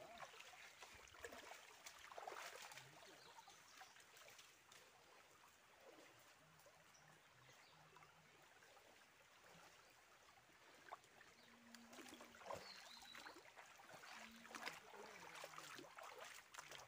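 Faint trickle of a shallow, rocky forest stream, with a few faint steps scattered through it.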